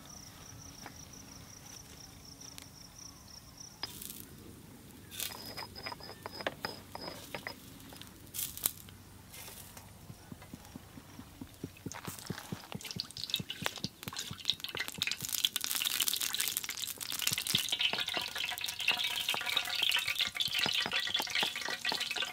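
A thin stream of liquid, most likely cooking oil, poured into a large aluminium handi set over a wood fire, followed by a dense crackling sizzle that sets in about halfway through and grows louder toward the end.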